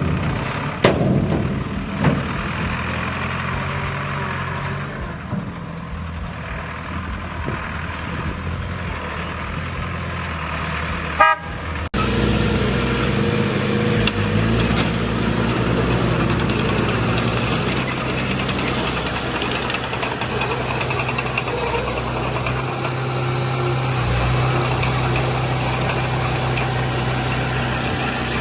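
Diesel engines of heavy earthmoving machinery running steadily. A short vehicle horn toot sounds a little before the middle, then the engine sound changes abruptly to a steadier, lower drone.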